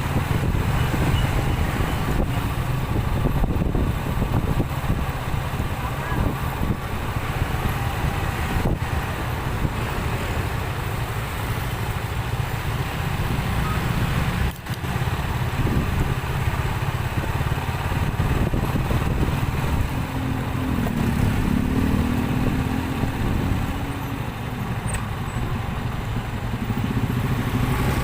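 City street traffic: motorcycle and car engines running in a steady rumble, with one engine's pitch rising and falling near the end.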